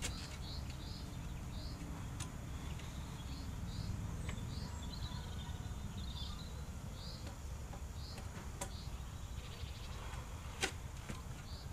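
Short high chirps repeating every half second or so from a small bird, over a low steady outdoor rumble, with a few sharp clicks.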